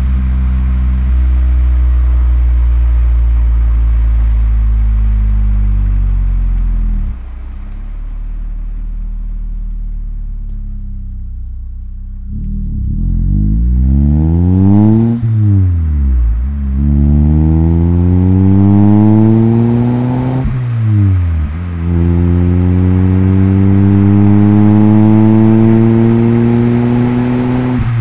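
Nissan Primera P10 1.6 SLX's four-cylinder petrol engine and exhaust under way: a steady cruise, then the revs fall away and it goes quieter for a few seconds. Then it accelerates through the gears, the revs climbing steeply three times, each climb ending in a quick drop as the next gear is engaged.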